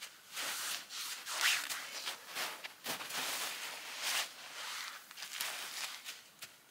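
Gloved hands scooping and packing snow: irregular crunching and scraping strokes, about one or two a second.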